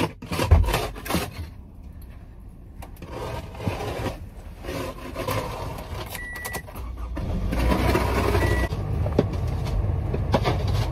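Car interior and door handling: rustling, knocks and clicks as someone moves in and out of the driver's seat, with two short high beeps from the car a couple of seconds apart. A low rumble from the car builds up about seven seconds in.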